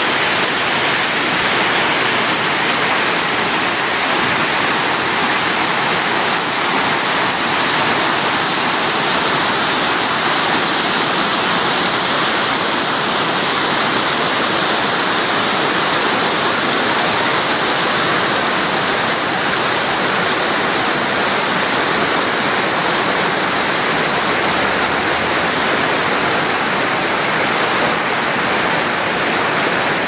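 Small waterfall and cascade rushing over rocks into a pool: a loud, steady rush of water.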